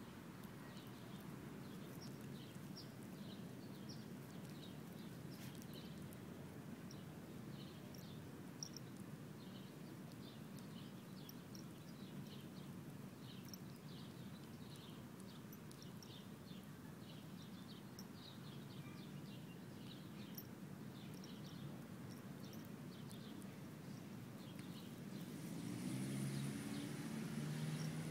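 A puppy chewing on a dandelion in grass, over faint outdoor background with irregular high chirps of small birds. About three seconds before the end, a louder low drone with several steady pitches comes in.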